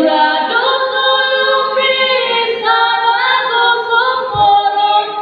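Unaccompanied group of voices singing a traditional Dusun chant, holding long notes together and stepping from one pitch to the next.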